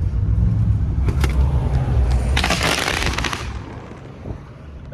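A firework crackling: a dense run of rapid small pops lasting about a second, starting a little over two seconds in, with a single sharp crack shortly before. Under it runs the low rumble of a car.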